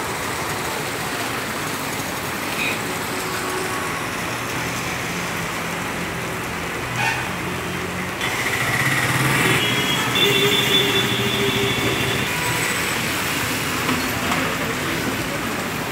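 Steady rain hissing on a wet street amid road traffic. About eight seconds in, a nearby vehicle engine grows louder and keeps running.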